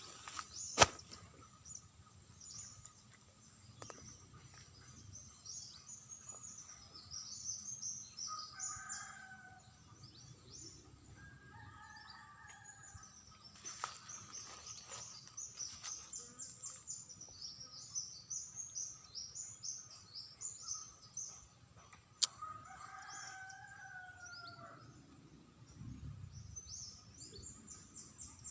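A rooster crowing three times, each crow an arching call of a second or two, over constant high, rapid chirping. A sharp click sounds about a second in, and another a little past the two-thirds mark.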